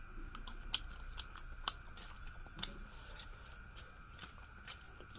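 A person chewing a handful of rice close to the microphone, with sharp wet mouth clicks and smacks, several in the first two seconds and sparser after.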